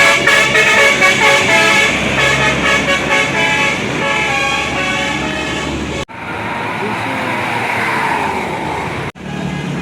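Bus 'telolet basuri' musical horn playing a melody of stepped, held notes. It cuts off abruptly about six seconds in to a noisier stretch without a clear tune. Another horn melody starts after a second sudden cut near the end.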